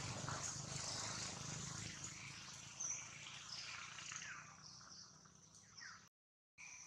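Faint outdoor ambience: a steady high hiss with scattered short chirps and a few brief falling calls. The sound cuts out completely for about half a second near the end.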